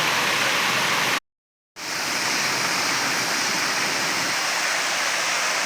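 Steady rushing of a waterfall. It cuts out to silence for about half a second a little over a second in, then comes back.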